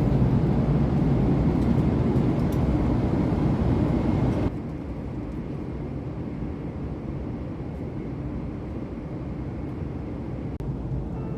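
Steady low rumble of a moving vehicle's cabin. It drops suddenly to a quieter rumble about four and a half seconds in.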